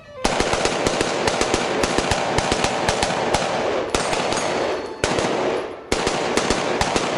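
B&T APC223 rifle in 5.56 mm firing rapid shots, about six a second, in strings broken by short pauses about five and six seconds in, each report ringing out after it.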